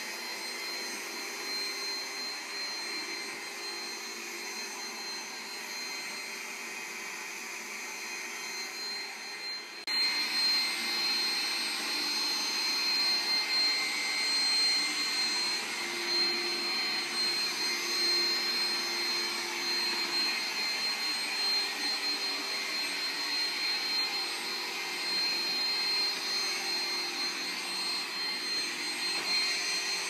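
Roomba robot vacuum running as it drives across a hardwood floor: a steady whirring hum with a constant high whine. It gets louder about a third of the way in.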